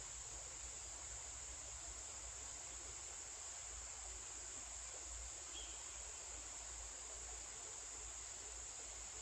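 Insect chorus: a steady, unbroken high-pitched drone of calling insects that does not rise or fall.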